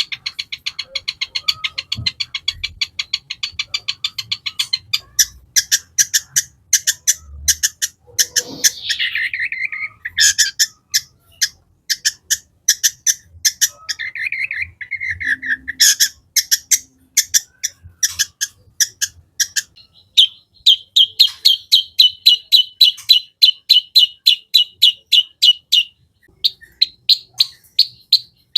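Long-tailed shrike (cendet) in full song: fast runs of sharp, high repeated notes at the start and again in the second half, slower separate notes between them, and two falling slurred calls in the middle.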